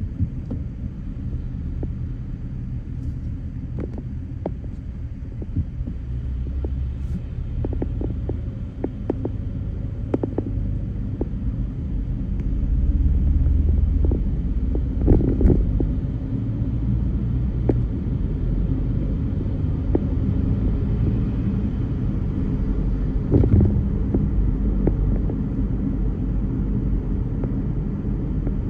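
Car driving in slow traffic: a steady low rumble of engine and road noise with light clicks and rattles. It grows louder about halfway through, and a couple of sharper knocks, like bumps in the road, come about halfway and about four-fifths of the way in.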